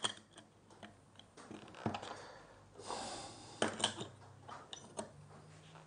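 Light metal clicks and taps as a hand plane's blade and cap iron are seated in the plane body and clamped in place, with a few soft handling rustles.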